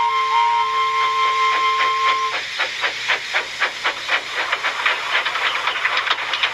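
Steam locomotive chuffing along, evenly spaced puffs with steam hiss at about four a second. A steady held tone with a few short notes sounds over it and stops about two and a half seconds in.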